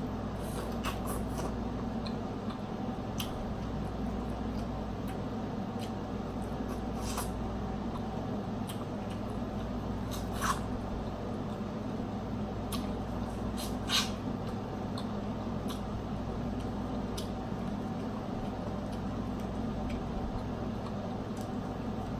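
Close-up eating of a snow crab and shrimp boil: crab shells cracking and wet chewing and sucking, heard as scattered small clicks and squishes with three louder snaps, over a steady low hum.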